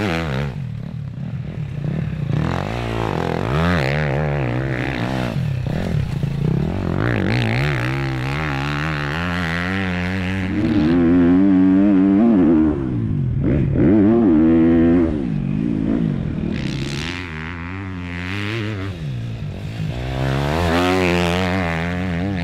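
Triumph TF 250-X single-cylinder four-stroke motocross bike ridden hard on a dirt track, its engine revving up and falling back over and over as it accelerates and backs off. It is loudest around the middle.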